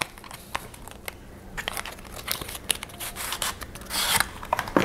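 Small cardboard eyeshadow-palette box being handled and opened by hand: scattered light clicks and taps, then a stretch of rustling and scraping of packaging about three to four seconds in.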